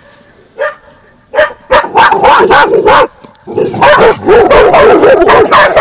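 Neighbor's dog barking: a couple of single barks, then two long runs of rapid, loud barking with a short break between them.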